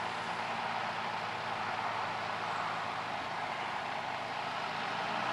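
Yamaha Phazer four-stroke twin engine driving the propeller of a Kolb Firestar 2 ultralight, running at a steady pitch on landing approach, with a broad rushing propeller and air noise over the engine's hum.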